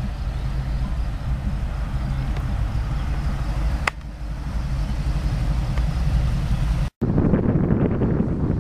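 Chopped custom Chevy van's engine running low and steady as the van drives along the road, with wind on the microphone. The sound breaks at two edits: a short click about four seconds in, and a brief dropout near seven seconds, after which wind buffeting on the microphone is heavier.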